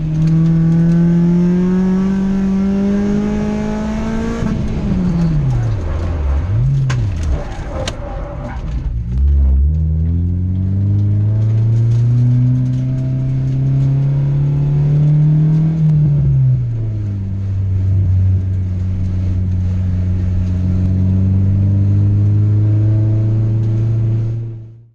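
Four-cylinder engine of an EK Honda Civic on an autocross run, revving up. A few seconds in the revs drop and swing down and up twice with some clatter, then climb steadily again, ease off, and hold a steady lower note until the sound cuts off abruptly.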